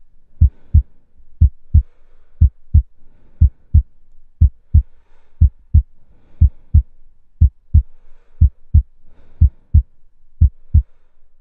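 Heartbeat sound effect: deep paired 'lub-dub' thumps, about one pair a second, steady throughout.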